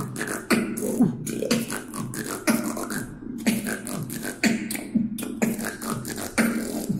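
Solo beatboxing: a steady beat with a sharp hit about twice a second, woven with a low vocal bass that slides down in pitch.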